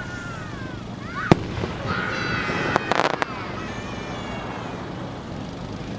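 Fireworks: a sharp bang about a second in, then a high whistling tone ending in a quick run of three or four sharp cracks about three seconds in.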